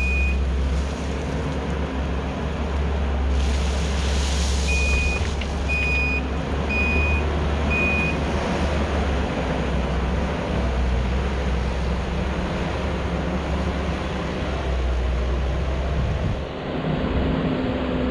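Kubota SVL90-2 compact track loader's diesel engine running steadily under work. A backup alarm beeps once at the start and then four times, about once a second, around a third of the way in.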